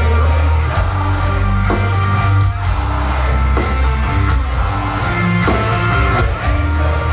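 Metal band playing live and loud through a venue PA, with distorted electric guitars over a heavy bass.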